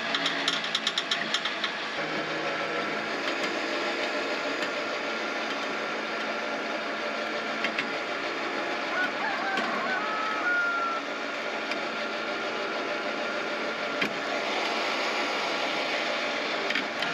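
A winch pulling a motorcycle toward a trailer, its motor running steadily after a second or two of rapid clicking, then stopping right at the end.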